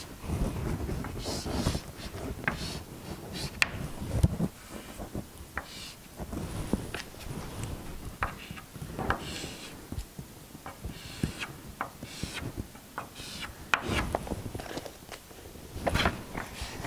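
Chalk scratching and tapping on a blackboard as a circuit diagram is drawn, in short irregular strokes and taps.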